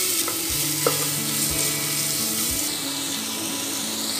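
Sliced onions frying in hot oil in an aluminium pressure cooker: a steady sizzle, with a wooden spatula stirring and scraping against the pot. Background music with a soft, even beat plays throughout.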